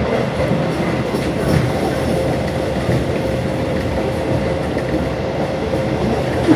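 Passenger train running at speed, heard from inside the carriage: a steady rumble of wheels on the rails with a faint constant whine and one louder knock near the end.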